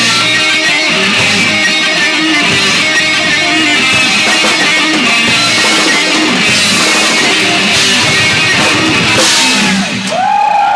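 Live rock band playing loudly: distorted electric guitars, bass and drum kit. The music breaks off near the end and the crowd starts shouting and cheering.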